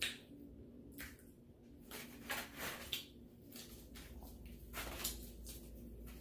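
Crispy fried chicken wings being pulled apart and eaten: a series of short crackling and crunching noises, several close together between two and three seconds in, over a faint steady hum.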